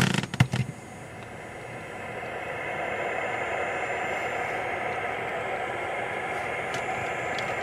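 CB radio receiver hissing with AM static through its speaker on an open channel, the hiss building over the first couple of seconds and then holding steady. It cuts down sharply at a click near the end, typical of the transmitting radio's mic being keyed.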